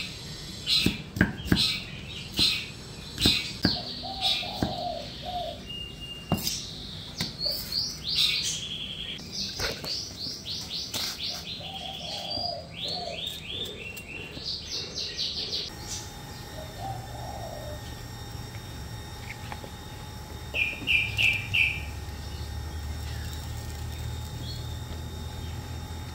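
A cleaver chops on a wooden board in sharp knocks for the first couple of seconds, while birds chirp in quick runs of repeated high notes through the first half and once more briefly later on. From about the middle a steady low hum sets in: a gas burner under a boiling soup pot.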